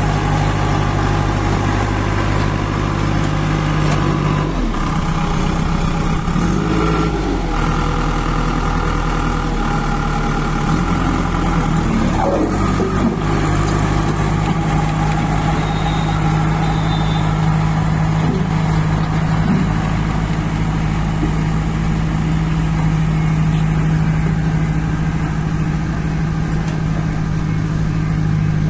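Kirloskar diesel engine of a JCB 2DX backhoe loader running steadily. Between about four and thirteen seconds in, its note dips and wavers, then it settles back to a steady run.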